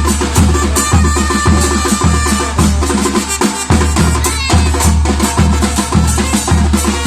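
Batucada percussion ensemble playing, with deep bass drum strokes about twice a second under faster drums and sharp wood-block-like clicks. The bass drums drop out briefly about three and a half seconds in, then the groove comes back.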